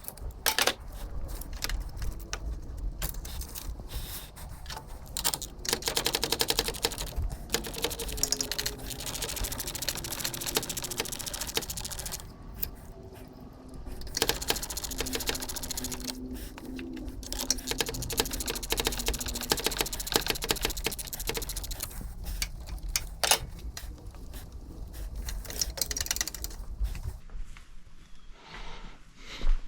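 Rapid mechanical clicking and rattling, with a faint steady hum through the middle stretch.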